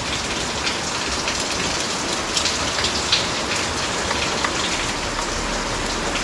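Steady rain falling, an even hiss with a few faint sharper ticks scattered through it.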